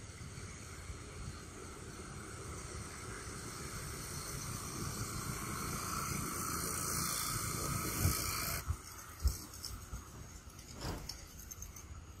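Outdoor background hiss that slowly grows louder and cuts off abruptly about two-thirds of the way through, with a couple of low thumps around the cut and a short click near the end.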